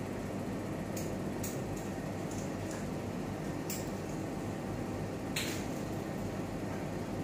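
Steady low hum of equipment in a cath lab room, with a scattering of small, sharp clicks and ticks in the first five and a half seconds, the loudest near the end of them.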